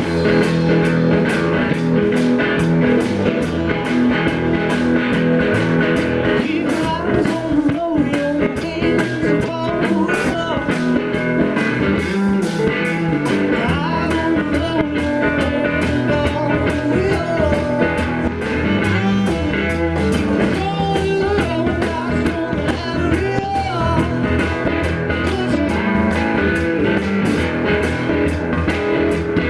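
Blues-rock music playing through an instrumental break: a lead guitar line over a steady beat, with no singing.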